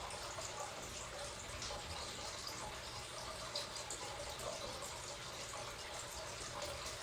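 Faint, steady background hiss with no distinct sound events.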